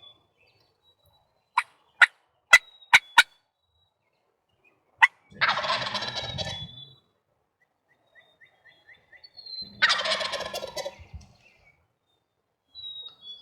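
Wild turkey tom gobbling twice, each gobble a loud rattling call about a second and a half long, preceded by a run of six short, sharp call notes.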